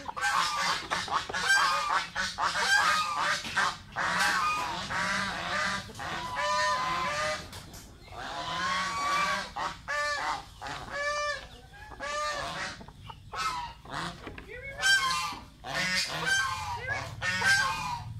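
Domestic geese honking over and over, many calls overlapping, with ducks calling among them.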